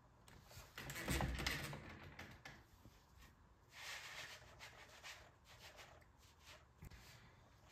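Faint handling noises: soft rustling and a few light knocks and scrapes as a plastic HO scale model passenger car is shifted about on a desk mat, the loudest about a second in and again about four seconds in.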